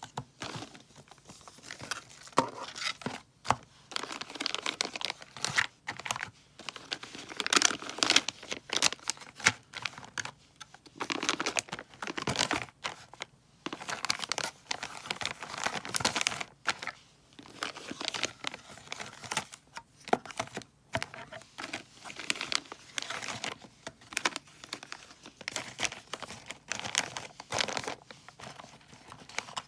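Clear plastic packaging, the parts bags and shrink-wrap of an RC lift kit, crinkling and rustling as it is handled, in irregular spells of crackling with short pauses between them.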